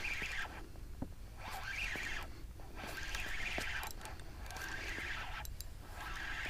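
Fishing reel being cranked to bring up a hooked fluke: scratchy, zipper-like winding in several stretches of about a second each with short pauses between, over a low steady rumble.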